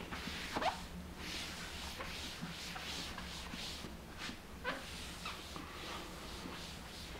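Absorbent quick-dry towel wiped back and forth across a smooth wood-look floor: repeated rubbing strokes, a few each second, with a couple of short squeaks.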